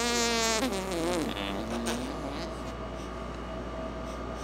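A man's voice holding a long, drawn-out "aaand" that wavers and trails off about two seconds in. A steady hum and room noise follow.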